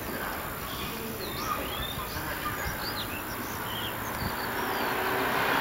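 Small birds chirping repeatedly in short rising and falling calls, over a steady background of rail-yard noise. Near the end, the rumble of a train grows louder.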